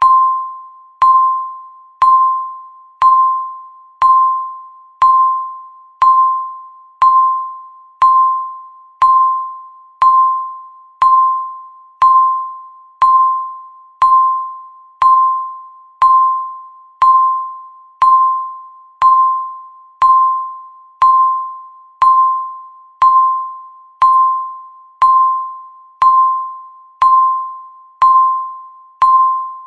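Countdown timer's tick sound: a short, clear beep at one pitch that starts with a click and fades out quickly, repeated once every second.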